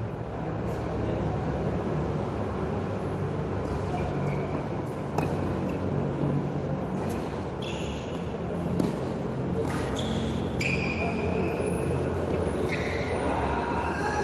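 Tennis rally on a hard court: a tennis ball struck by rackets a few times as sharp pops, with short high squeaks like sneakers on the court surface. Under it runs a steady low background rumble.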